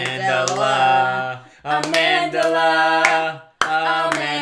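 Voices singing long held notes without accompaniment, the sound breaking off briefly twice between phrases.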